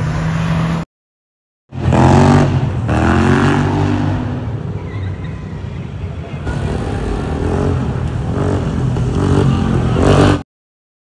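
Car and motorcycle engines revving and accelerating through an intersection, with rises in pitch as the throttle opens. The sound comes in several short clips, broken by two brief moments of dead silence.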